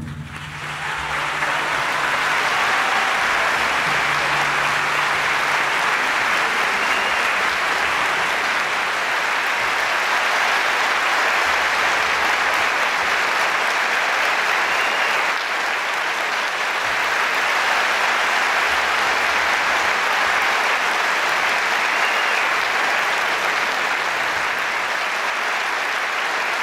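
Concert audience applauding steadily; the applause builds over the first couple of seconds as the orchestra's final chord dies away, then holds at an even level.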